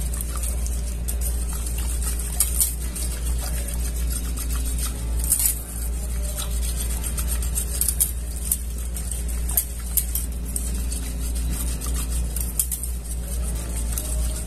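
Wire balloon whisk stirring a liquid in a stainless steel pot, with scattered light clicks of the wire tines against the metal, over a steady low hum.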